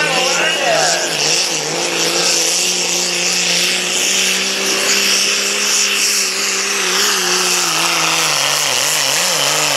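Diesel Dodge Ram pickup's Cummins inline-six running flat out under full load while pulling a sled, its pitch holding steady and then sagging and wavering near the end.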